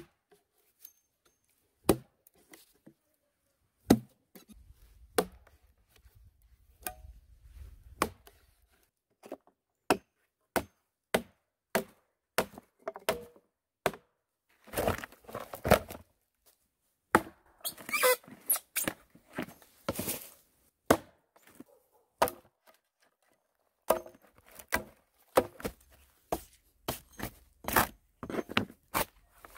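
Hatchet striking a log over and over as the log is split lengthwise: sharp knocks at irregular intervals, some in quick runs of several blows.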